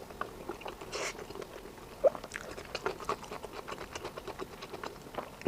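Close-miked chewing with many quick wet mouth clicks and smacks, a brief slurp about a second in and a short gulp-like blip about two seconds in.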